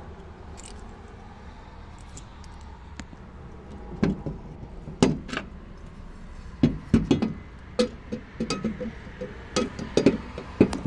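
Steel wheel clamp lock being handled and fitted, its metal parts knocking and clanking. After a few quiet seconds an irregular run of sharp knocks and clatters starts about four seconds in and goes on to the end.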